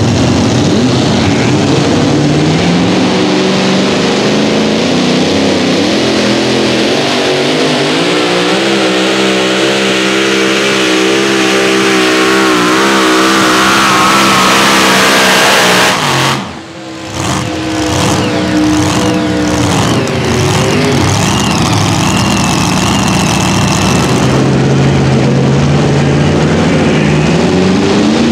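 Supercharged engine of a super modified two-wheel-drive pulling truck at full throttle through a pull. Its pitch climbs over the first few seconds, then holds with a wavering pitch, and the engine cuts off abruptly a little past halfway. Near the end another pulling truck's engine starts running and revs up, its pitch rising.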